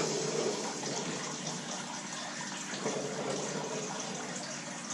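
Steady rushing background noise, like running water, with no distinct knocks or clicks.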